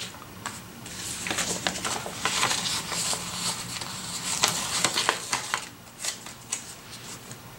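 Crinkling and crackling of a paper sticker sheet being handled as a sticker is peeled from its backing, dense for a few seconds and then trailing off into a few separate clicks.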